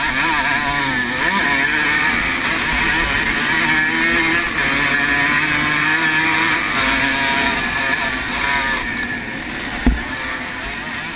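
1980 Honda CR125R's single-cylinder two-stroke engine revving hard under race load, its pitch rising and dropping as the rider works through the gears. A single sharp thump comes near the end.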